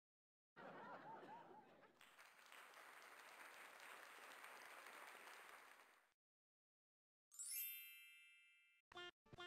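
Sound-effect clips: a stretch of applause and cheering lasting about five and a half seconds, then a single bright ding that rings and fades, followed by two short clipped tones near the end.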